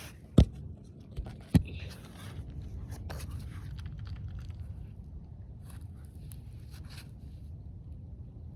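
Two sharp knocks close together, then irregular scraping and clicking for several seconds over a low steady rumble.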